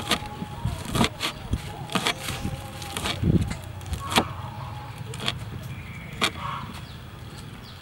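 Cleaver chopping red chilies on a wooden cutting board: irregular sharp knocks, quick and frequent at first, then spaced out to a few single chops in the second half.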